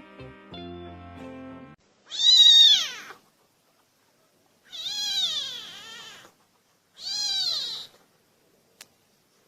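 A cat meowing three times in long, drawn-out meows, the first the loudest and the second wavering in pitch, after a short stretch of background music with plucked strings.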